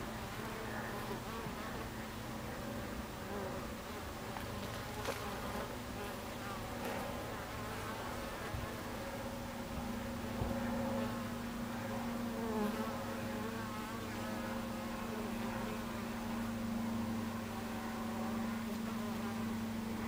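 Buckfast honeybees buzzing at the hive entrance: a steady, even hum from the colony, with the wavering buzz of single bees over it.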